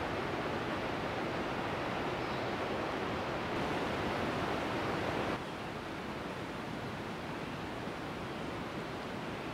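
Steady rushing outdoor noise with no distinct events. About five and a half seconds in it turns abruptly a little quieter and duller.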